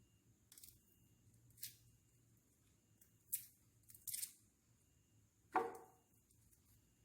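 Faint kitchen work: a few short clicks and scrapes of utensils handling garlic and ginger, then one louder knock about five and a half seconds in.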